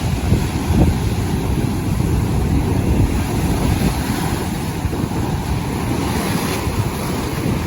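Sea noise with wind buffeting the microphone: a steady low rumble of gusts over a wash of surf, the hiss swelling briefly about six seconds in.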